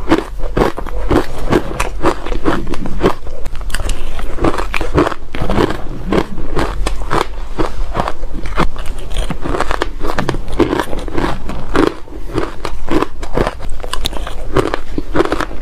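Ice chunks being bitten and chewed: rapid, continuous crunching and cracking of ice between the teeth, which the uploader calls squeaky and crunchy.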